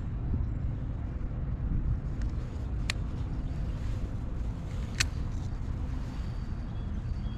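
Steady low rumble of wind on the microphone, with two sharp clicks about two seconds apart near the middle.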